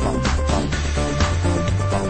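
Electronic dance music with a steady beat, about two a second, over a repeating bassline.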